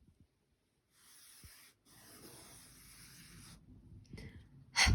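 A fingertip drawing through flour on a metal baking tray: soft scraping strokes, one short and one longer, as a letter is traced. Near the end comes a brief, louder rustle.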